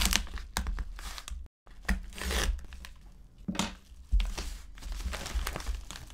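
A padded paper mailer being slit with a small blade and torn open by hand, in repeated bursts of rustling, crinkling and tearing. The sound cuts out completely for a moment about one and a half seconds in.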